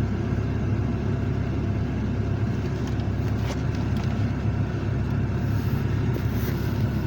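Steady low rumble of a vehicle engine running at idle, unchanging throughout.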